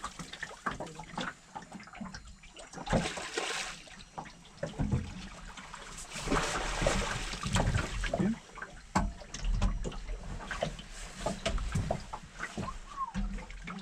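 Water sloshing and splashing around a small boat, with scattered knocks and clicks.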